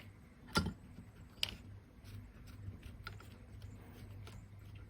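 A few small clicks and taps from handling a small plastic remote and tools on a workbench, the sharpest about half a second in and another just under a second later, with fainter ticks later on, over a steady low hum.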